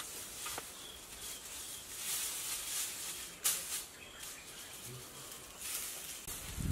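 Dry grass thatch rustling and scraping against the bamboo roof frame as a thatch panel is lifted and worked into place, swelling and fading with a few light clicks and taps. Faint bird chirps sound in the background.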